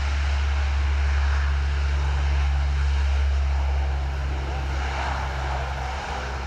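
Royal New Zealand Air Force C-130 Hercules's four Allison T56 turboprops running on the ground, a steady low propeller drone under a broad turbine hiss, easing slightly near the end.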